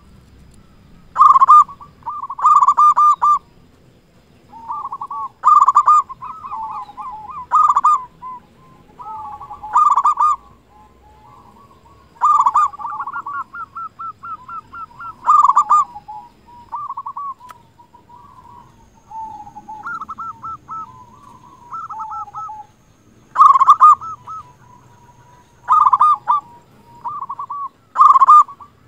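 Zebra dove (perkutut) singing: phrases of fast, stuttering cooing notes repeated every two or three seconds, some loud and some softer, with short pauses between.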